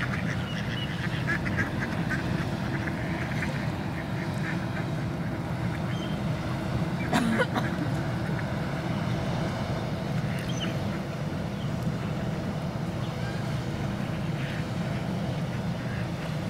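Mallard ducks quacking on and off, over a steady low rumble.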